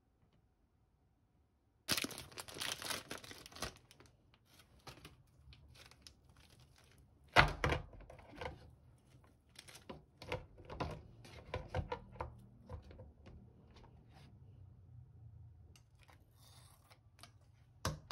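Packaging torn open for about two seconds, then one loud thunk, followed by crinkling and light clicking as dry flat glass noodle sheets are pulled apart and dropped into a paper noodle cup.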